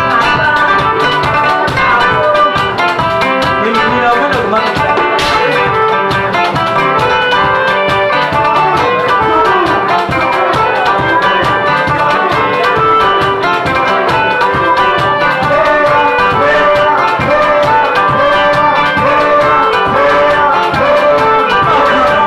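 Band music with a steady drum beat under bright melodic instruments.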